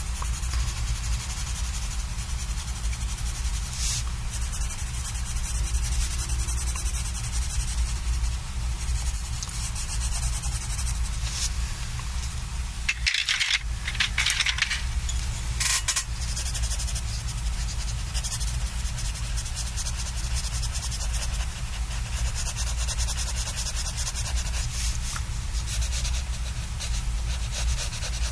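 Coloured pencil scratching across sketchbook paper in steady back-and-forth shading strokes, with a brief louder rustle about halfway through.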